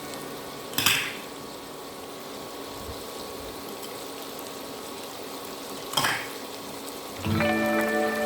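Anchovies and stink beans frying in hot oil in a pan: a steady sizzle, with two short loud bursts of pan noise, about a second in and again about six seconds in.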